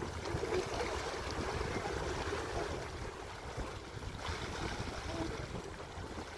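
Steady wind rumbling on the microphone, with water washing underneath.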